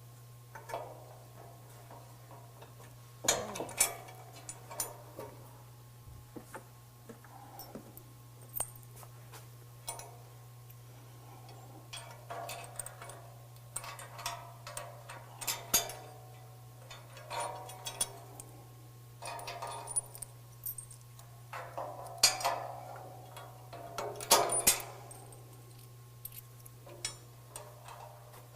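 Scattered metal clinks, clicks and short clatters of hand tools and bolts as a bumper support bracket is fitted to a pickup's frame rail, with a few louder knocks, over a steady low hum.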